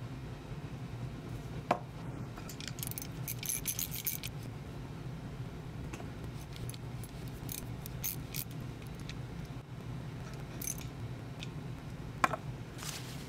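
Small metal parts and tools clicking, rattling and scraping as a CA-glued lag bolt is turned into a wooden handle with a socket. There is a sharp click about two seconds in, a quick run of clicks just after it, and the loudest click near the end, over a steady low hum.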